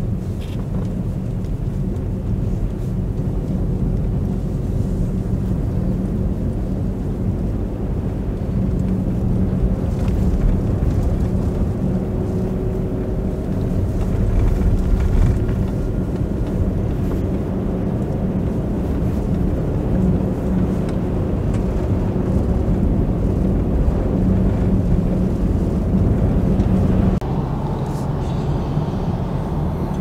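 Cabin sound of a Volkswagen Atlas SUV driving along a snow-covered road: a steady engine drone with tyre and road noise. Near the end it cuts abruptly to a slightly quieter, similar steady drone from inside another moving vehicle.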